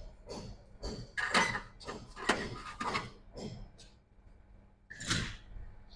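Handling noises from a MacBook Pro logic board being moved and laid back into its open case: a few short rubbing strokes, then louder scraping and knocks, and one more short knock about five seconds in.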